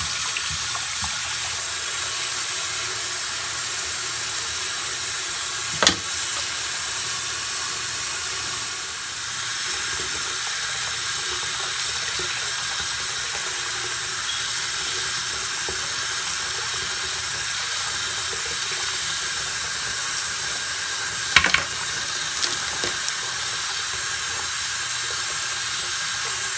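Bathroom sink faucet running steadily, the stream splashing over makeup brushes and hands as they are rinsed and squeezed under it. Two brief knocks sound along the way.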